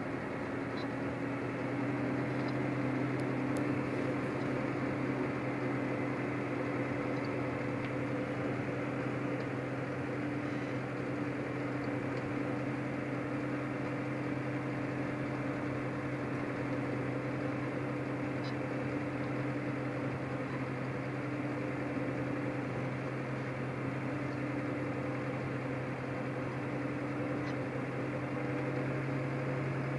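Case IH Maxxum 130 tractor's six-cylinder diesel engine running at a steady speed, heard from inside the cab as an even drone, a little louder near the end.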